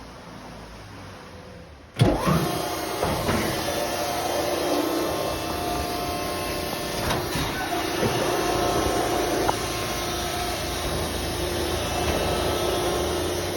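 Cramalot HX72 baler's hydraulic power unit starting suddenly about two seconds in, then running with a steady hum and a constant whine, with a few light knocks.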